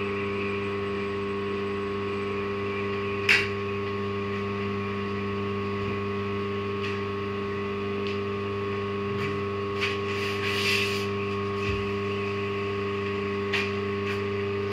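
Steady electrical machine hum from workshop machinery, with a few short clicks and knocks on top, a cluster of them about ten seconds in and another near the end.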